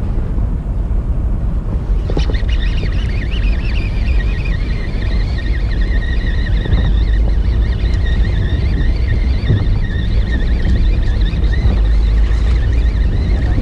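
Fishing boat's engine rumbling with wind buffeting the microphone. From about two seconds in, a high, wavering whine runs on over it.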